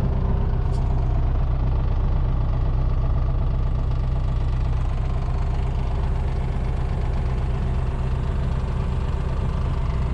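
Jabiru J120's air-cooled flat-four engine and propeller running steadily at low taxi power, heard from inside the cockpit.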